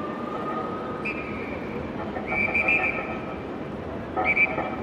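Street noise under police sirens: a siren's held tone, rising slightly, fades out in the first second and a half, then comes a series of short shrill blasts, the loudest a couple of seconds in and another near the end.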